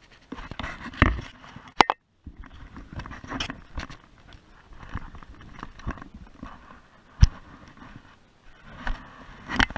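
Handling noise on an action camera's microphone: fabric of clothing and a pack rubbing and scraping against it, with several sharp knocks.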